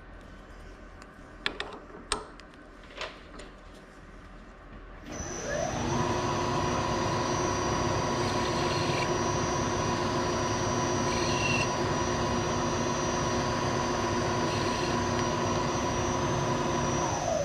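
A few light clicks as a bit is fitted in the drill chuck, then the milling machine's spindle motor starts about five seconds in, runs at a steady speed while a drilled hole in a round aluminium part is chamfered, and switches off near the end.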